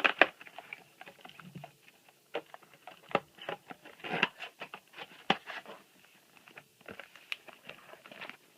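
Trading-card booster packs and their box being handled: irregular crinkling, rustling and light taps of foil wrappers and cardboard.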